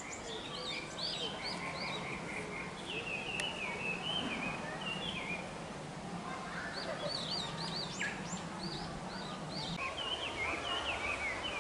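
Birds chirping, many short repeated chirps in bursts, over a low steady hum that stops near the end.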